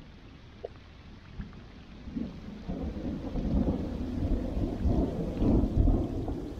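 Rain falling on a river during a thunderstorm, with a low rolling rumble of thunder that builds from about two seconds in and keeps going nearly to the end.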